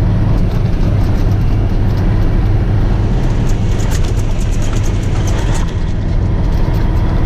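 Tow truck driving on a muddy dirt road: a steady low engine and tyre drone, with a run of light ticks about halfway through.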